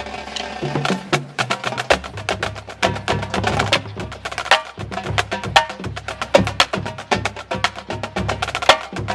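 Marching band drumline playing a fast cadence: dense, rapid sharp strikes over pitched low drum tones.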